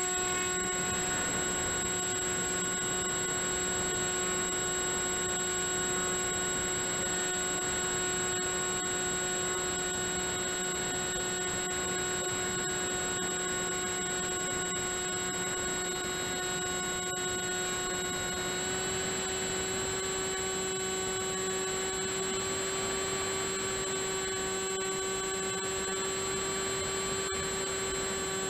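Electric motor and propeller of an FMS Red Dragonfly RC model plane running steadily under power, heard from a camera on the plane as a steady whine rich in overtones. The pitch steps up a little about two-thirds of the way through.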